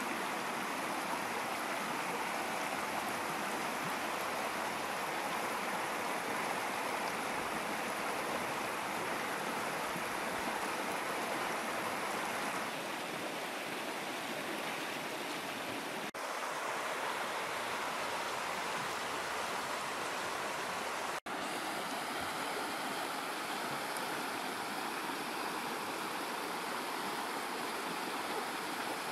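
Fast, shallow river rushing over rocks: a steady rush of water that drops out for an instant about 21 seconds in.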